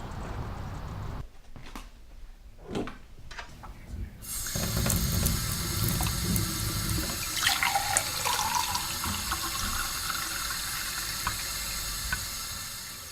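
Water running from a tap into a sink: a few small knocks, then the flow comes on about four seconds in and runs steadily.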